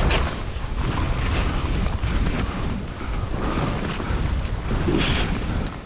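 Wind buffeting the microphone of a camera moving fast downhill on skis, a heavy fluctuating rumble, with swells of skis hissing and scraping over snow near the start and about five seconds in.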